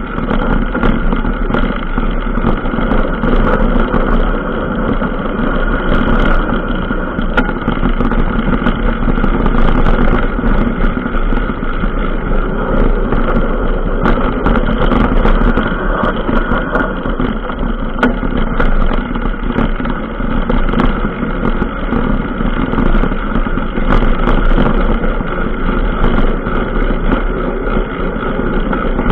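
Steady rushing noise of a ride along a rough dirt track, picked up by a vehicle-mounted camera, with frequent small clicks and rattles from the bumps.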